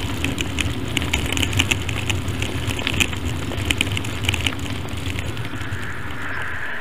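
Bicycle being ridden: a steady low rumble of wind and road noise with scattered sharp clicks and crackles.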